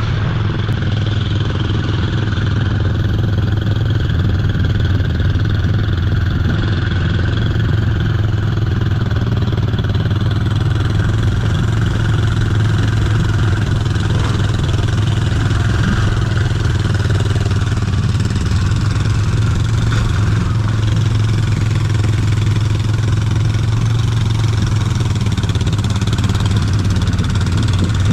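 ATV engine running steadily at a nearly constant pitch, with no marked revving.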